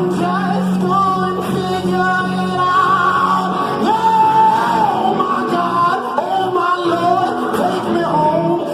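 A live band playing, with a lead vocalist singing long, bending notes over it.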